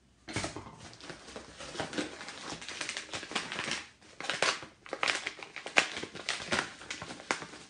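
Wrapping being crinkled and rustled by hands unwrapping an item, in irregular bursts with a brief pause about four seconds in.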